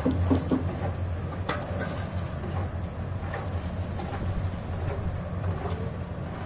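A steady low hum with a few sharp knocks, the loudest about a second and a half in.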